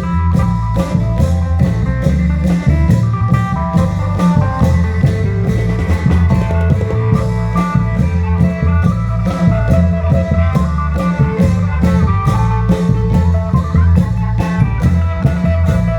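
Isan klong yao long-drum ensemble playing a driving dance beat of about three to four strokes a second over a heavy bass line, with a plucked-string melody on top.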